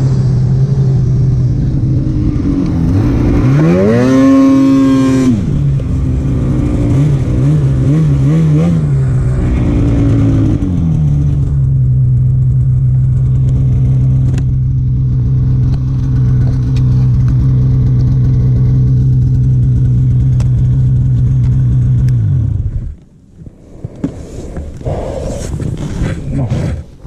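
Polaris Patriot 850 snowmobile's twin-cylinder two-stroke engine running under throttle while riding. It revs up and down between about three and eleven seconds in, holds a steady pitch for about ten seconds, then falls away abruptly about 23 seconds in as the throttle is let off, leaving much quieter sound.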